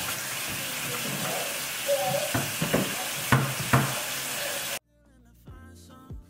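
Kitchen faucet running into a sink during dishwashing, with several sharp knocks and clinks of dishes and utensils. About three-quarters of the way in the sound cuts off abruptly and gives way to quieter background music.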